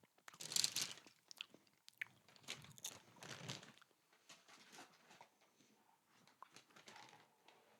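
Close-up crunching and chewing of crisp dry cereal: several loud crunches in the first few seconds, tailing off into quieter chewing clicks.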